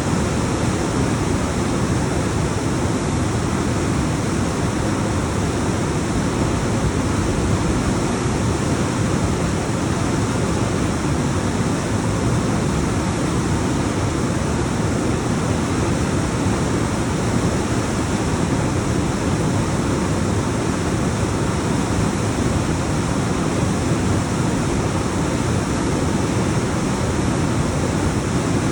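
Waterfall cascading down rocks: a continuous, even rush of water, heaviest in the low end, with no breaks or single splashes standing out.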